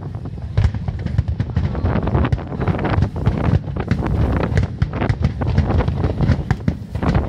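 Aerial fireworks bursting in a rapid, irregular string of pops and bangs, over a low rumble of wind on the microphone.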